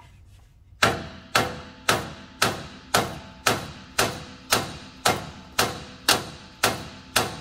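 Hammer striking a steel pitman arm and its puller on a Jeep's steering, about two blows a second in a steady rhythm starting about a second in, each blow with a short metallic ring. It is an attempt to shock the stuck pitman arm loose from the steering gearbox shaft.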